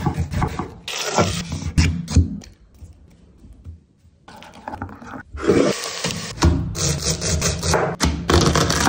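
Chef's knife cutting through a tomato on a wooden cutting board: a quick series of cuts and knocks on the board. After a short lull, dense scraping, rustling and knocking sounds of ingredients being handled on the board.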